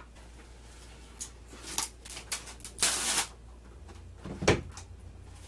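Plastic cling wrap being pulled off the roll and stretched over a plate, crinkling and rustling, with a longer tearing rustle about three seconds in. A single sharp knock on the table follows about a second later.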